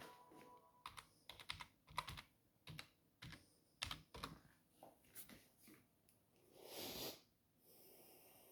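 Faint, irregular clicking of keys being typed on a computer keyboard, followed near the end by a short soft rush of noise.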